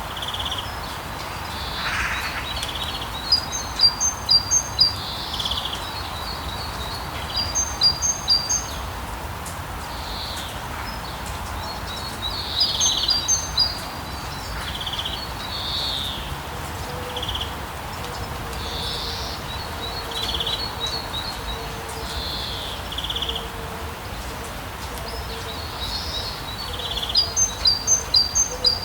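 Birds singing over a steady hiss of rain: one bird repeats a quick run of high chirps four times, with other scattered calls between.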